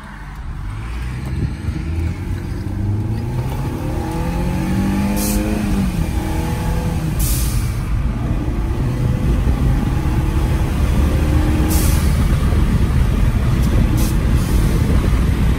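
Mercedes-Benz C250 (W204) turbocharged four-cylinder accelerating, heard from inside the cabin with the windows down, its engine note rising in pitch as it pulls. A short sharp hiss from the newly fitted vent-to-atmosphere blow-off valve comes four times as the throttle lifts.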